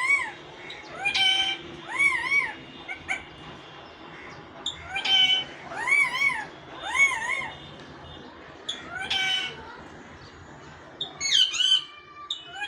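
A pet parrot giving a series of short, clear calls that rise and fall in pitch, about eight in all, several coming in quick pairs.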